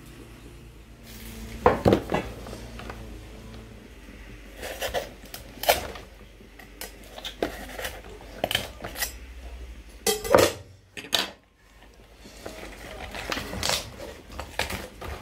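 Kitchen handling sounds: irregular clinks, knocks and short scrapes of cookware and utensils, loudest about two seconds and ten seconds in. A low steady hum underneath stops about eleven seconds in.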